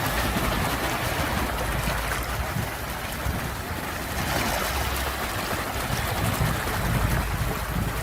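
Sea waves: a steady rush of surf over a deep rumble, easing a little about three seconds in and then building again.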